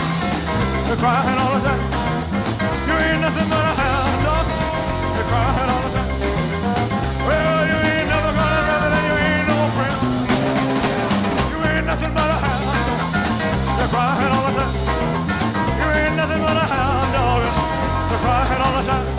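Upbeat rock and roll music without words, with a bass line changing notes steadily under guitar melody lines.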